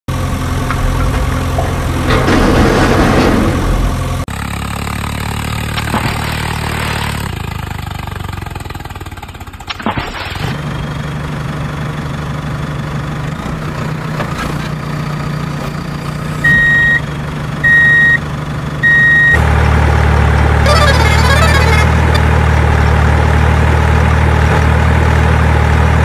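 Dubbed-in heavy vehicle engine sound effects running steadily, switching to a different engine note several times. Three short, even, high beeps sound about two-thirds of the way in.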